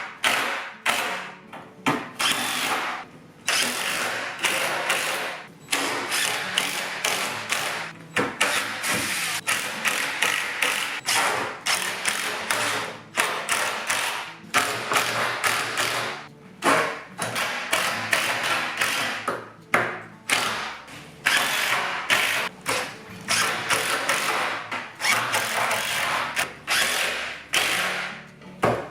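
Ratchet clicking in repeated strokes with short pauses between them, driving fasteners home to secure a wooden tabletop to its base.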